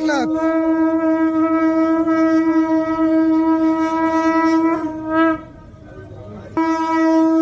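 Conch shells (shankha) blown in a long, steady, loud blast that wavers briefly and breaks off about five seconds in, then a fresh blast starts about a second and a half later.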